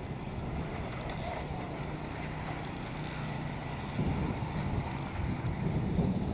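Wind buffeting the microphone, a low rumble that grows stronger about four seconds in.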